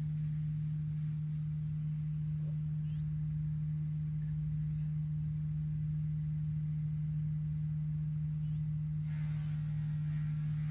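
A steady low hum, one unwavering tone, with faint background noise; a soft hiss rises about nine seconds in.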